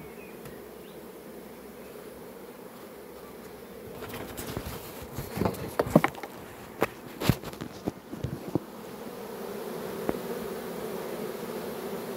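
A swarm of honeybees buzzing in a steady hum that grows louder in the last few seconds. In the middle there is a cluster of sharp knocks and clicks.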